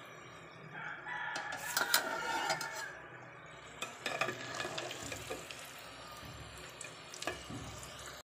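Slotted steel spoon clinking and scraping against a steel pot as fried whole potatoes are lifted out of hot oil, with the oil sizzling. A drawn-out pitched sound, about two seconds long, stands out from about a second in.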